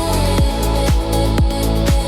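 Instrumental electronic dance music: a kick drum hitting about twice a second under a steady bass and held synth notes.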